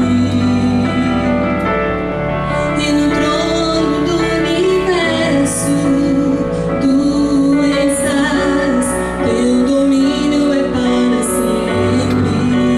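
A woman singing a gospel worship song into a microphone, with wavering held notes over an accompaniment of sustained chords and held bass notes.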